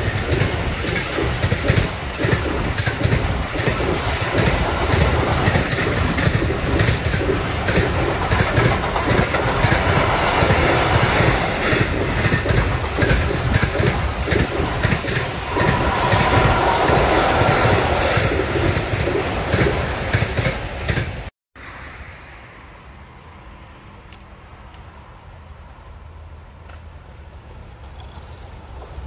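Freight train of container wagons passing close by: a steady rumble and clatter of wheels on the rails. About two-thirds of the way through, the sound cuts off abruptly and gives way to a much quieter low rumble that grows louder near the end as the next train approaches.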